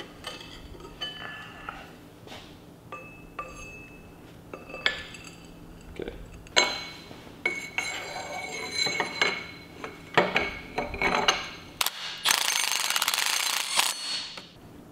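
Steel parts and bolts clinking and knocking as a sprocket and brake disc are fitted to a small differential, then near the end a cordless impact driver runs for about two seconds, hammering a longer bolt in to fasten them.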